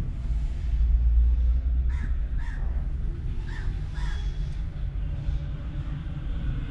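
Crows cawing outside, four short caws in two pairs starting about two seconds in, over a steady low rumble.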